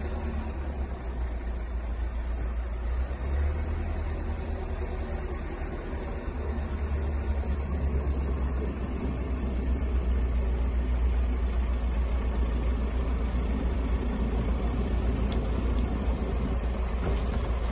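Wheel loader's diesel engine running as the machine drives in with a load of pallets on its forks, a steady deep rumble that grows louder about halfway through as it comes closer.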